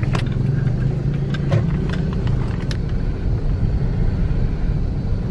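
Car on the move with a steady low engine and road rumble. A few light clicks and rattles come in the first three seconds.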